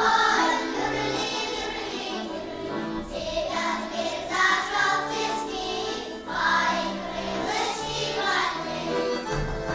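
Music with voices singing a melody over accompaniment.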